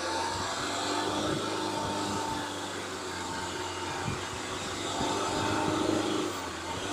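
Car engine revving under throttle while its wheels spin on an icy slope, trying and failing to climb. It has a steady whine, swells about five seconds in, then eases off near the end.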